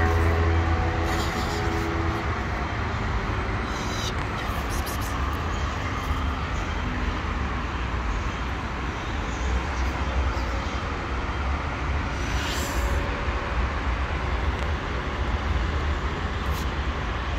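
Steady outdoor background noise, a low rumble with an even hiss over it.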